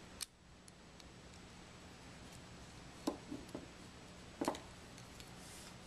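A few light clicks of a metal pick tool against a sampler's metal plunger as its seals are pried off, scattered over a faint steady hum.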